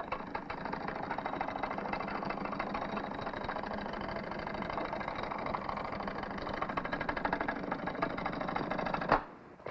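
A steady, rapid mechanical rattle like a running motor, which cuts off suddenly near the end.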